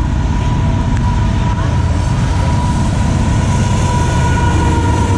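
Freight train cars rolling past with a steady, loud low rumble and a faint, steady high whine running over it.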